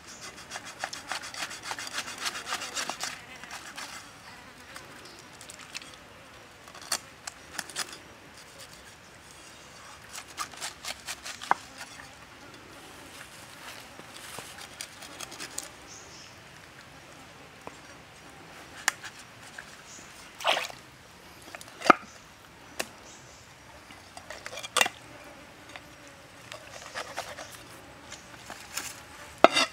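Cleaver scraping the scales off a whole fish on a flat stone: rapid rasping strokes for the first few seconds, then scattered scrapes. In the second half, sharp knocks of the blade striking the stone as the fish is cut open and gutted.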